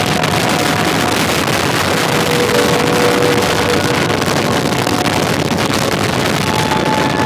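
Harley-Davidson V-twin motorcycle cruising at road speed: a steady engine drone under a constant rush of wind on the microphone.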